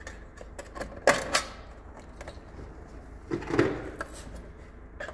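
Plastic clips and covers clicking and snapping as they are worked loose by hand from a mini-split indoor unit's electrical box, with two sharp clicks about a second in and a duller knock around three and a half seconds.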